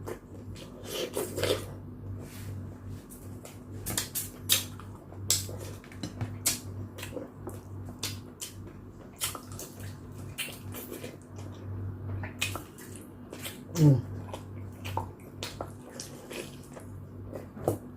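Close-up eating sounds of chicken tinola soup: wet chewing and slurping with many short sharp clicks of a spoon or fork against a bowl. A steady low hum runs underneath.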